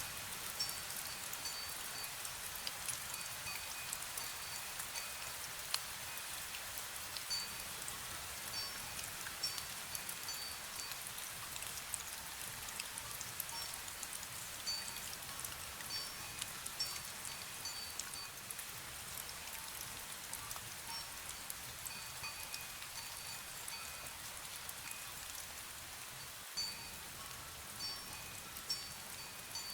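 Steady rain falling, with a wind bell ringing in short, light tinkles now and then, several pitches at once.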